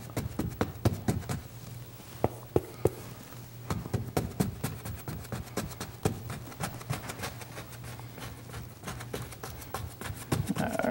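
Paintbrush held flat and dabbed against a stretched canvas on an easel to lay in grass: a quick irregular run of light taps, several a second, over a low steady hum.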